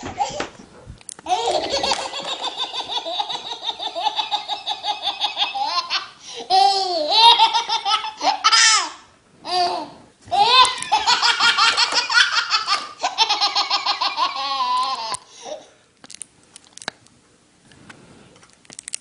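A baby laughing hard in long runs of rapid, high-pitched belly laughs with short breaks, then falling quiet apart from a few faint clicks near the end.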